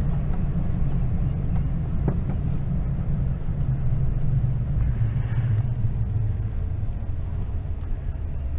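Truck being driven, heard from inside the cab: a steady low rumble of engine and road noise.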